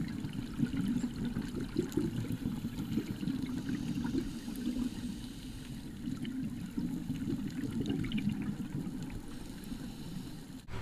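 Muffled underwater ambience picked up by a diving camera: a low, churning rush of water with faint scattered clicks.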